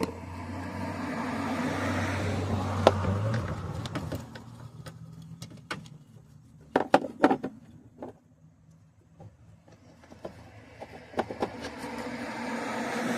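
Vehicle noise with a low hum that swells and then stops sharply a few seconds in. After it come a few sharp clicks and a cluster of knocks, and vehicle noise rises again near the end.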